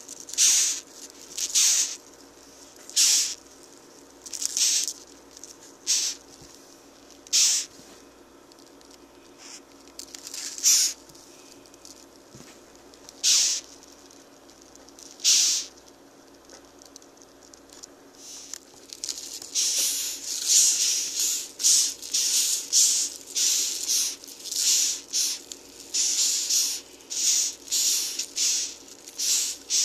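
Ten-lined June beetles hissing: short breathy "ffft" bursts made by rubbing against their wing covers, the alarm sound of a disturbed beetle. The bursts come one every one to three seconds at first, then several a second from about twenty seconds in, as the beetles are prodded.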